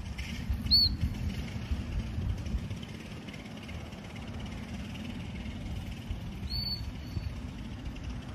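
Wind buffeting the microphone in gusts, with two brief high chirps, one about a second in and one later on.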